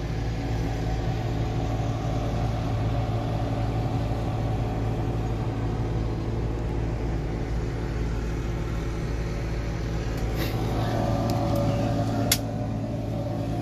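A 2007 Peterbilt's Caterpillar diesel idling steadily, heard from inside the cab. There is a sharp click near the end.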